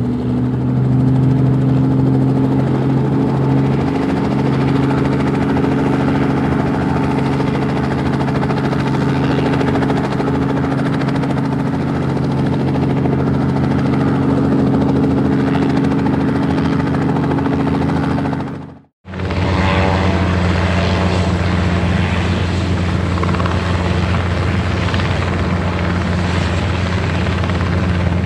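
Helicopter running steadily: a loud, continuous rotor-and-engine drone with a steady pitched hum. It cuts out to silence for a moment about two-thirds of the way through, then a second helicopter recording starts, with a lower hum.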